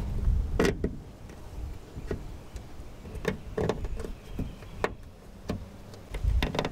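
Scattered light clicks and taps of plastic trim clips and fasteners as a felt trunk-lid liner panel is pressed into place by hand, about a dozen irregular clicks over a low rumble that is strongest at the start and again near the end.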